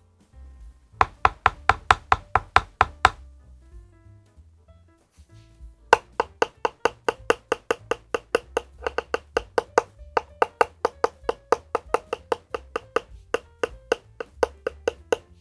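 Typing on a LEOPOLD FC660MBT mechanical keyboard: a short run of keystrokes, then after a pause of about three seconds a longer run of about five keystrokes a second. Soft background music plays underneath.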